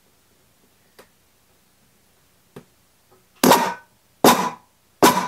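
Small-engine electric starter motor bench-tested straight off a jump pack, spinning up in three short bursts of about half a second each with a whirring whine as the ground lead is touched on and off. Two faint ticks from the lead touching come first. The starter spinning on direct 12 volts shows it works.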